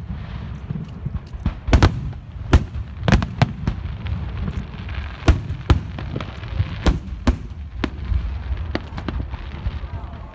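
Aerial fireworks going off in an irregular series of sharp bangs, about a dozen, sometimes two close together, over a steady low rumble.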